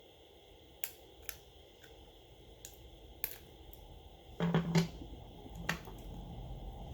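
Small sharp clicks and taps of hand tools and plastic parts during smartphone disassembly, about five single clicks scattered through, with a louder quick cluster of knocks near the middle.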